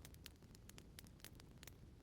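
Wood fire crackling faintly in a fireplace: irregular small pops and snaps, several a second, over a low steady rumble.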